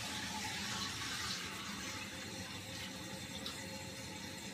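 A newly installed toilet fill valve running, water hissing and splashing steadily as it refills the tank after the supply is turned back on.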